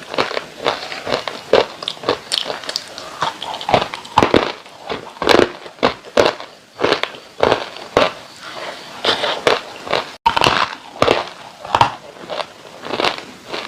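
Dry clay being bitten and crunched close to the microphone: a run of sharp, crackly crunches, one or two a second, with a split-second cut to silence about ten seconds in.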